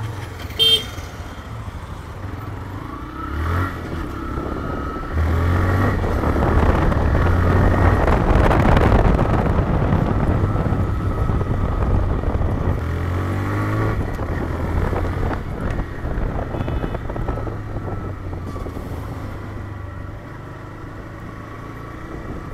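TVS Raider 125 motorcycle's single-cylinder engine running under way, with road and wind rush on the microphone that grows louder from about five seconds in, as speed picks up. A short horn toot sounds about a second in.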